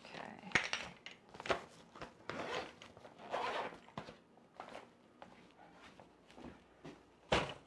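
Spice jars being handled and set down on a counter: a series of short rattling and scraping handling sounds, with a sharp knock near the end.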